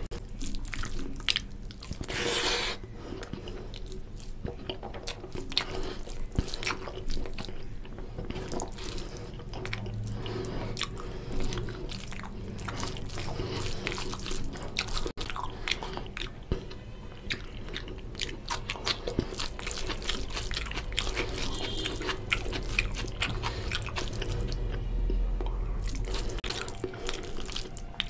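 Close-miked wet squelching and smacking of rice and oily mutton curry gravy being mashed and mixed by hand, a dense run of small sticky clicks, with chewing and mouth sounds.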